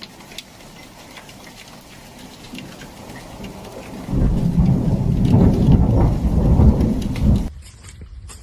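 Rain and hail falling steadily with scattered ticks of hitting stones. About four seconds in, a loud rumble of thunder lasts a few seconds and cuts off suddenly, leaving sharp scattered ticks.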